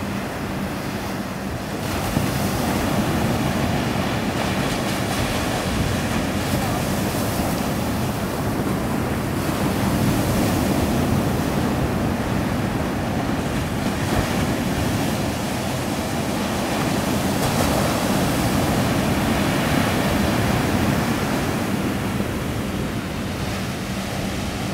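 Surf breaking and washing up a sandy beach, the noise swelling and easing in slow surges as each wave comes in, with wind noise on the microphone.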